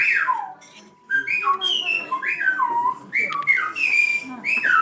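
Silbo Gomero, the whistled language of La Gomera: a run of short whistled phrases whose pitch glides up and down, with a brief pause about a second in before the whistling resumes.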